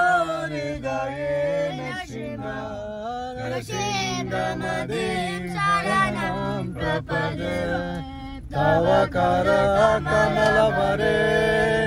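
A group of children singing a devotional song together, several voices with held and gliding notes.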